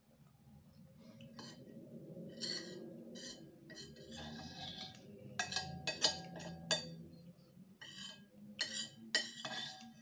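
Glass and dishware clinking: a string of sharp clinks and knocks, a few ringing briefly, over a low steady hum.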